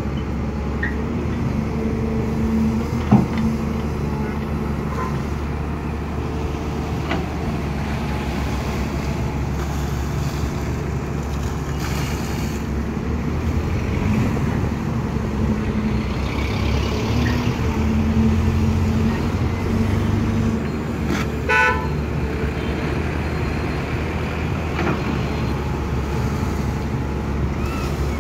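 CAT 320 hydraulic excavator's diesel engine running steadily as the machine digs, working harder for a few seconds past the middle. There is a sharp click about three seconds in and a short horn-like toot about two-thirds of the way through.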